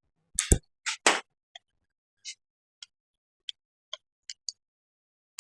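Metal tools and engine parts clinking and knocking during engine disassembly: a few sharp knocks in the first second or so, then scattered light ticks, and a louder knock at the end.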